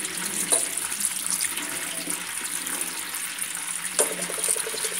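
Cold tap water running into an aluminium colander of boiled okra in a stainless steel sink, a cold-water shock to stop the cooking. Two light knocks sound over the steady rush, one near the start and one near the end.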